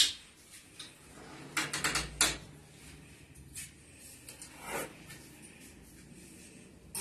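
Gas stove's oven door being pulled open, a quick run of clicks and clunks about two seconds in, followed by a few fainter knocks of an aluminium baking tray being handled.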